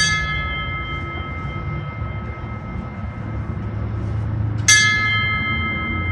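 Fire service bell struck twice, about four and a half seconds apart, each stroke ringing on with several clear tones that slowly fade. These are taps of the bell ceremony's three rings, the fire service signal that a job is completed, sounded in honor of a deceased firefighter.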